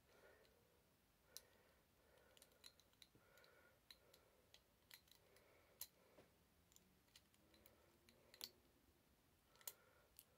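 Near silence: quiet room tone with a handful of faint, scattered clicks.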